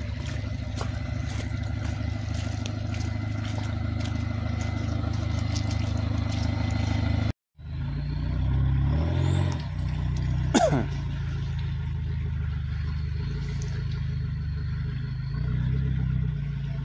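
Off-road SUV engines running at low speed on a muddy forest track. The sound cuts out briefly a little past the middle. After that the engine note rises and falls as the vehicle crawls over logs, with a brief sharp squeal a few seconds later.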